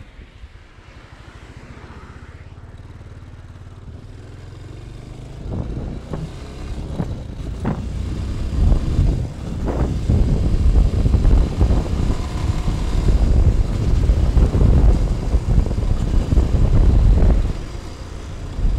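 Motorcycle engine pulling away and accelerating, quiet at first and getting much louder from about five seconds in, with wind rushing and buffeting the microphone as speed builds. The sound dips briefly near the end, then picks up again.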